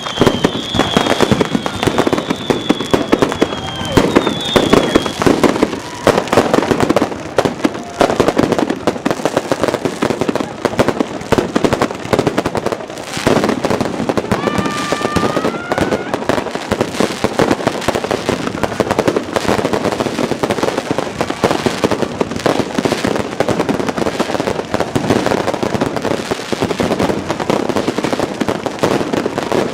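Dense, continuous barrage of New Year's fireworks: overlapping bangs and firecracker crackling with no let-up. Whistling rockets cut through it, one long whistle during the first five seconds and rising whistles about fifteen seconds in.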